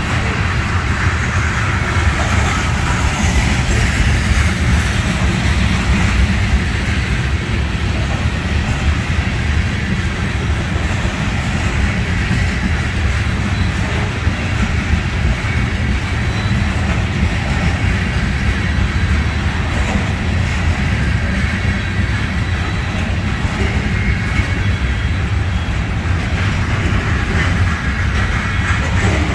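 Freight cars of a trash train loaded with waste containers rolling past, with a steady rumble of steel wheels on the rails.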